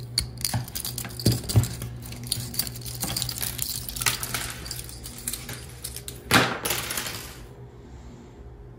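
Light clicks and clinks of stiff wires and small metal parts being handled, with a short louder rustling burst about six seconds in, over a steady low hum.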